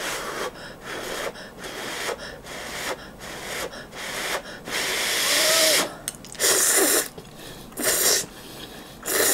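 A person slurping instant ramyeon noodles from a pot. It starts as a quick run of short sucking slurps about two a second, then turns into several longer, louder slurps.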